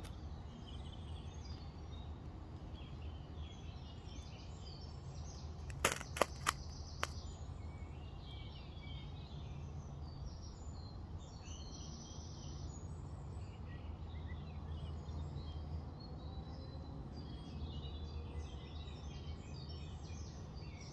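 A few quick, sharp scrapes about six seconds in, fitting a knife struck down a ferrocerium rod to throw sparks into wood shavings. Birds chirp throughout over a steady low rumble.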